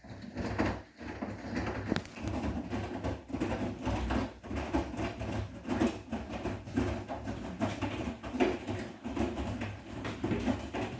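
Bosch WGA252Z0TR front-loading washing machine running a 90°C cotton wash, its drum turning and tumbling wet laundry with a low rumble and irregular soft knocks. The sound starts abruptly at the very beginning.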